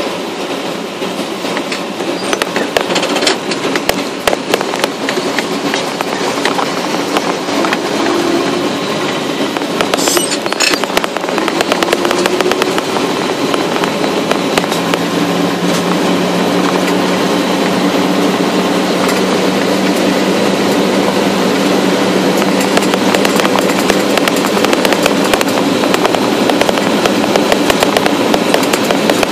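A small motor vehicle travelling along a gravel road: tyres crackling over loose gravel under a continuous rushing noise, with a motor drone that rises in pitch a couple of times and then holds steady for the second half.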